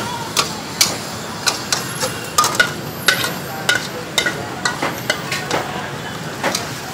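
A metal spatula clanking and scraping against a wok in quick, irregular strikes over a steady sizzling hiss.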